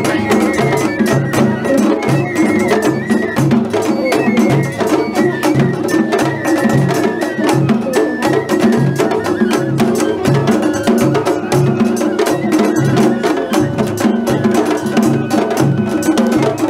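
Festival float hayashi music played live: taiko drums beating a steady repeating rhythm under a high bamboo flute melody that steps from note to note.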